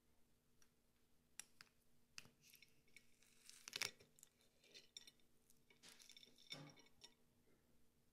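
Faint clicks and crackles of a metal fork breaking into the thin white-chocolate shell of an entremet and knocking on a porcelain plate, the loudest crack about four seconds in.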